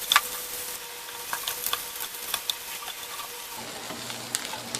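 Fried mutton pieces with onion and capsicum sizzling in oil in a pan while being stirred, with scattered clicks and scrapes of the spoon against the pan.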